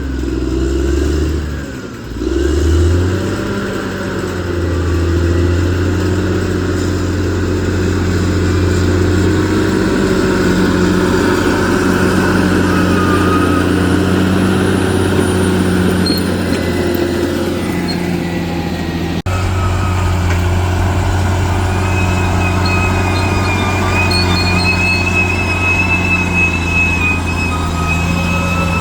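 Bulldozer's diesel engine running under load with a steady low drone, dipping and then rising in pitch about two to three seconds in. A thin high whine joins in during the later part.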